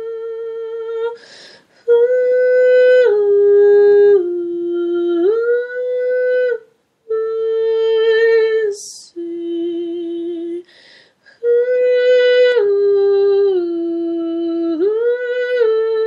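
A woman singing long, wordless held notes in slow phrases, stepping down in pitch and gliding back up. She takes an audible breath between phrases.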